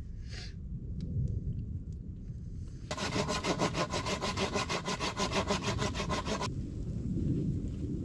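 A hand saw cutting through wood in rapid, even strokes for about three and a half seconds, starting about three seconds in and stopping abruptly. A low rumbling noise runs underneath.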